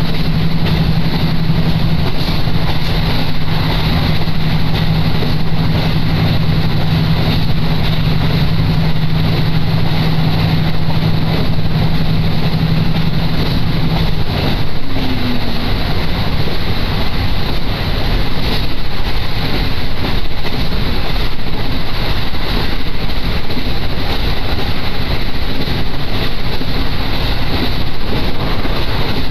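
Inside the cabin of a moving diesel railcar: a steady loud rumble of wheels on track and running gear. A steady low engine hum stops about halfway through.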